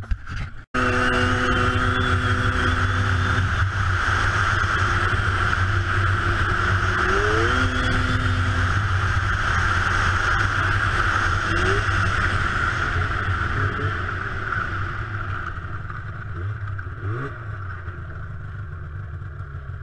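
Snowmobile engine running steadily at speed across open ice, with rushing wind, easing off over the last several seconds as the sled slows.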